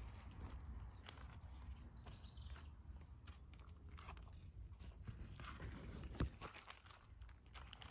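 Large leaves brushing and crackling against the camera as it pushes low through canna plants and ferns, with one sharp click about six seconds in.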